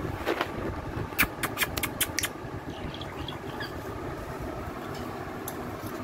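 About six sharp clicks in quick succession on the wire bars of a parrot cage, a little over a second in, over a steady low background hum.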